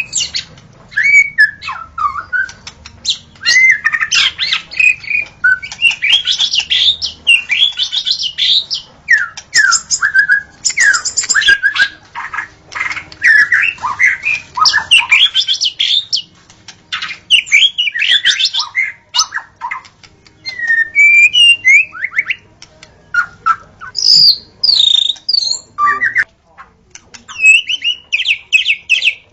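White-rumped shama (murai batu) singing: a long, varied run of rapid phrases mixing clear gliding whistles, fast trills and harsher notes, with short pauses between phrases.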